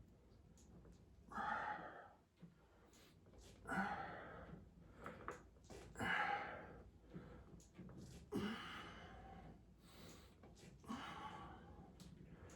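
A man breathing hard through a weightlifting set, a forceful breath about every two and a half seconds, five times.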